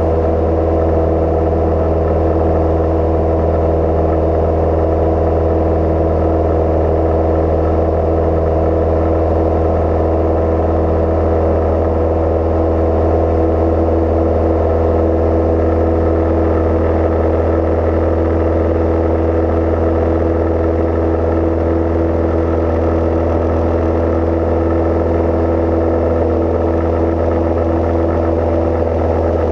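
Cozy Mk IV's piston engine and pusher propeller droning steadily in flight, a constant low hum with an even stack of tones that holds the same pitch and level throughout.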